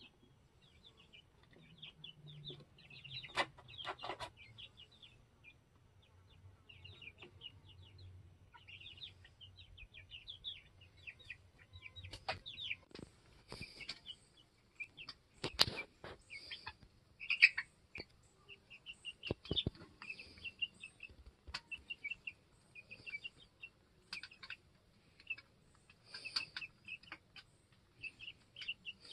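Chickens peeping and clucking: a near-constant run of short high peeps, broken by a few sharp knocks and clicks.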